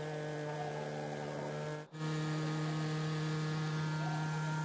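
Small boat's outboard motor running at a steady speed: an even, unchanging hum, broken off for a moment about two seconds in.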